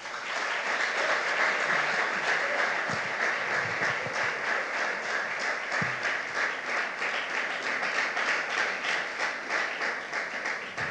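Audience applauding, starting at once and slowly dying away near the end.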